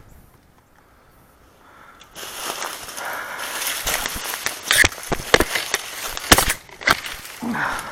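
Rapid steps through dry leaf litter and brush: loud rustling and crunching with sharp twig snaps. It starts about two seconds in, after a quiet moment.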